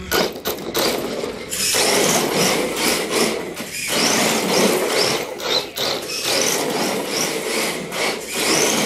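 Electric RC drift car (Exceed RC Drift King) drifting on a hardwood floor: tyres skidding across the wood under the high whine of its motor, which rises and falls over and over as the throttle is worked.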